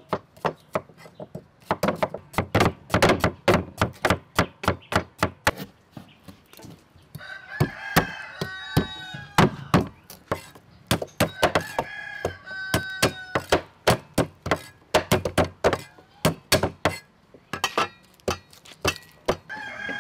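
Large kitchen knife chopping root on a thick wooden chopping block: quick, steady chops hitting the wood, several a second. A rooster crows in the background about a third of the way in, again around the middle, and once more near the end.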